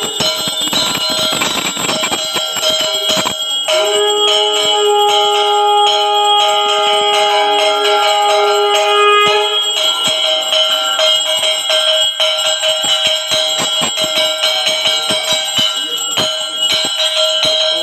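Brass puja hand bells rung rapidly and continuously during an aarti, a dense clatter of strikes over a steady metallic ring. About four seconds in, a steady lower held tone joins for about six seconds, then stops.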